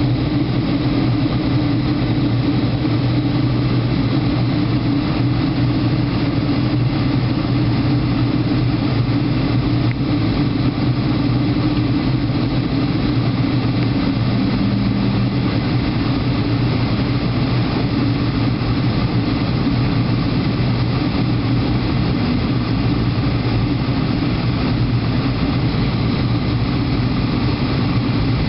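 Steady jet engine and airflow noise heard inside the cabin of a Boeing 757-200 in flight: an even rush with a low hum that holds level throughout.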